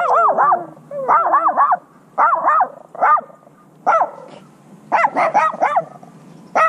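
Small dog yapping in quick bursts of high-pitched barks, groups of two to four with single barks between, about one burst a second. A falling whine runs under the first two bursts.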